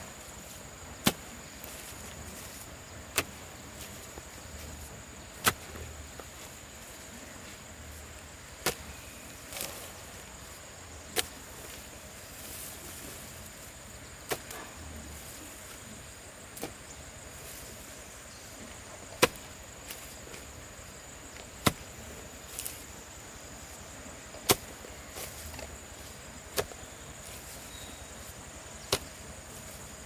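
Hand hoe chopping into clods of damp field soil, about a dozen sharp strikes spaced two to three seconds apart. A steady high-pitched insect buzz runs behind it.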